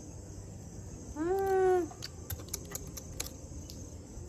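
Insects, likely crickets, chirping steadily in the background. About a second in comes a short pitched call lasting under a second, of unclear source, followed by a scatter of sharp light clicks.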